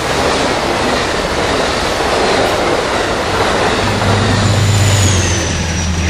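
Amtrak Pacific Surfliner passenger train passing at speed: the bi-level cars' wheels rumble on the rails, then the trailing P32-8WH diesel locomotive goes by about four seconds in, its engine hum growing stronger, with a faint high whine that drops in pitch as it passes.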